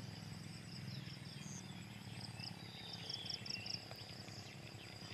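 Rural outdoor ambience: insects trilling steadily on one high note, with a run of short high chirps around the middle, over a faint low hum.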